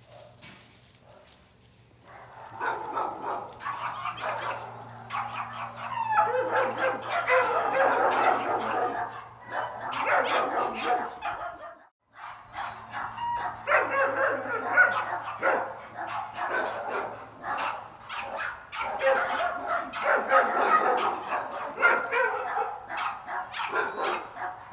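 Dogs barking and yipping over and over, with a faint steady low hum underneath. The sound breaks off briefly about halfway through, then the barking carries on.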